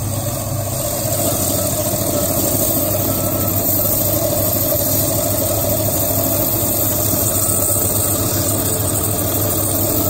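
Wet tabletop band saw running steadily, its blade cutting through a Lobophyllia coral skeleton with water spraying off it. The blade is really bad.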